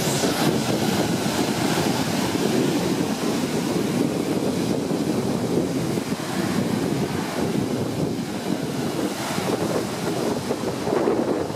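Small lake waves breaking and washing onto a pebble beach, with wind rumbling on the microphone.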